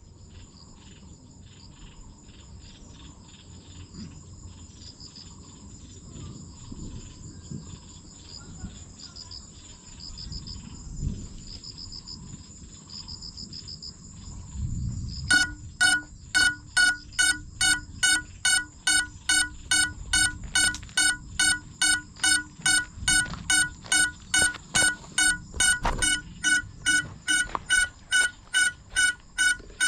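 Faint insects chirring in the grass; about halfway through, a crashed FPV drone's electronic lost-model beeper starts sounding loud, evenly spaced beeps, about two a second.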